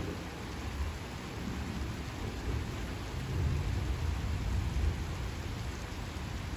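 Steady rain falling, with a low rumble of thunder swelling about halfway through and fading again.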